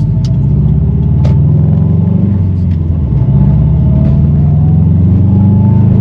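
Subaru WRX STI's turbocharged flat-four engine heard from inside the cabin, pulling hard under acceleration. Its pitch climbs, drops back at a gearshift about two and a half seconds in, then climbs again through the next gear.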